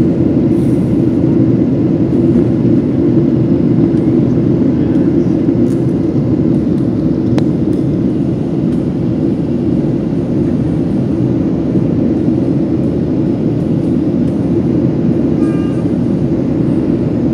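Steady, loud cabin roar inside a Boeing 737-700 in flight: its CFM56-7 turbofan engines and the airflow past the fuselage, heard from a window seat over the wing.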